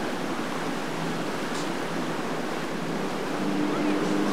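Churning, rushing water of boat wakes. A boat engine's steady drone comes in about three seconds in.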